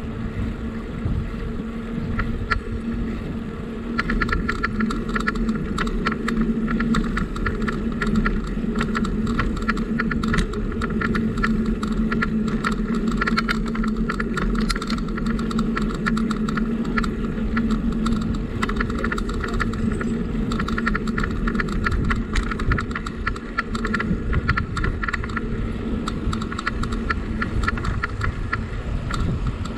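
A bicycle being ridden, heard from the bike itself: a steady hum with a constant rumble and many small rattles and clicks, which become busier about four seconds in, plus wind on the microphone.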